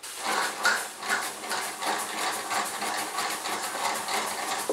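Small model steam engine just started and running, with a rapid rhythmic chuffing and clatter as it drives a Meccano model.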